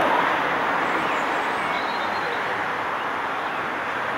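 Steady hiss of steam from 60163 Tornado, a Peppercorn A1 Pacific steam locomotive, as it moves slowly, with no clear exhaust beat.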